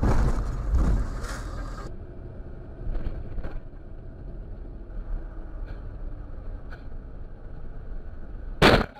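Dashcam engine and road noise, a loud low rumble at first and then quieter after a cut. Near the end comes one loud, sudden crash as the vehicle runs into the back of a trolleybus ahead.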